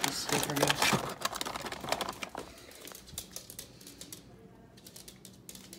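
Clicking and rattling as a chew treat is handed to a dog behind a white wire gate, busiest in the first two and a half seconds, then fainter.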